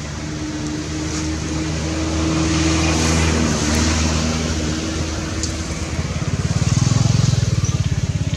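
A motor vehicle engine running with a steady low hum. It swells, eases, then grows loudest near the end with a fast throb.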